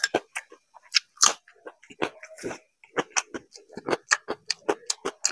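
Close-miked mouth sounds of eating: chewing and biting with many sharp crunching clicks, several a second and uneven, as crisp potato chips are chewed along with soft food.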